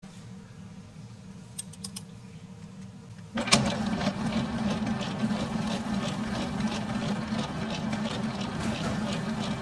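A machine starts up about three and a half seconds in and runs steadily, with a fast, regular clatter over a low hum. Before it starts there is only a faint hum and a few light clicks.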